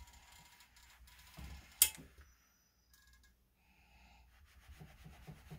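Steam iron held down on iron-on interfacing, with faint rubbing and handling noise against the fabric and one sharp click a little under two seconds in.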